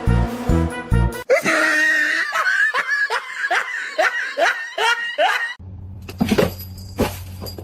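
Music with a steady beat, cut off about a second in by a run of about ten short laughs, each falling in pitch, a little over two a second. Then a low hum with two sharp knocks near the end.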